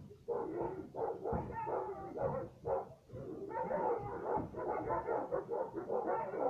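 Several kennelled dogs barking at once, a dense run of overlapping barks that starts a moment in and carries on, with a brief lull about three seconds in.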